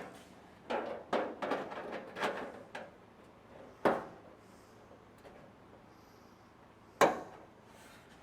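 Clattering and knocking of metal parts being handled and fitted: a run of short rattles in the first three seconds, then two sharp knocks about four and seven seconds in.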